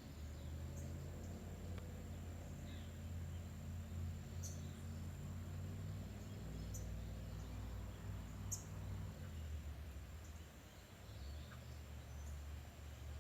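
A steady high-pitched insect trill, with a few brief sharp bird chips, over a low steady rumble.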